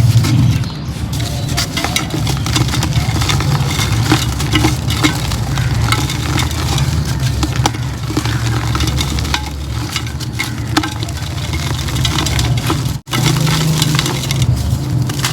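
Pink concrete pot crumbling: a dense, continuous run of small crackles and cracks over a steady low rumble, briefly cutting out about 13 seconds in.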